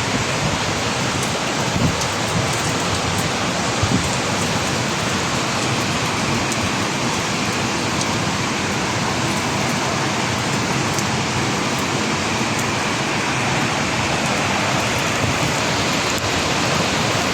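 Heavy rain pouring steadily, with a few sharper drop impacts in the first few seconds.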